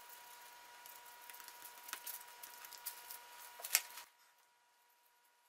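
Faint handling sounds of an acid brush dabbing epoxy onto a segmented wooden disc, with a few small taps, the sharpest about four seconds in; after that it falls to near silence.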